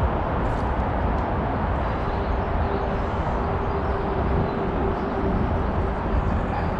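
Steady rushing noise of a shallow, weedy stream flowing around an angler wading in it, with a deep rumble underneath. A faint steady hum sits over it from about two seconds in until near the end.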